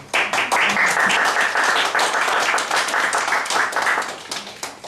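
Audience applauding, many hands clapping at once; the applause starts just after the poem ends and dies away near the end.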